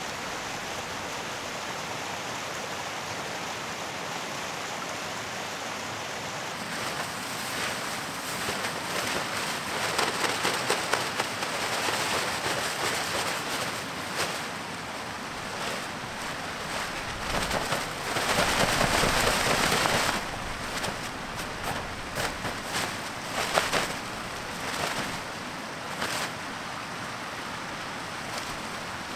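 A steady rushing background, then from about seven seconds in the rustling and crinkling of a Zpacks Free Duo tent's Dyneema fabric being lifted, shaken and folded as the tent is taken down. It comes in irregular swells with sharp crackles, loudest about eighteen to twenty seconds in.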